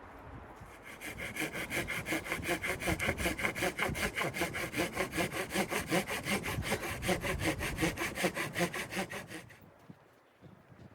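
Hand saw cutting through wood with quick, even back-and-forth strokes, starting about a second in and stopping near the end.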